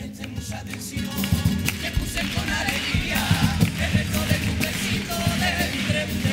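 Cádiz carnival comparsa performing: strummed Spanish guitars and percussion with the group's voices singing. The music picks up after a short lull at the start.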